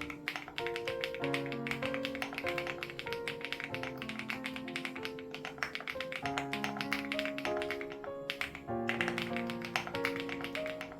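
Fast typing on a Crush80 Reboot mechanical keyboard with HMX Hyacinth switches: a dense run of keystrokes with a brief pause about three-quarters of the way through. Background music with sustained melodic notes plays underneath.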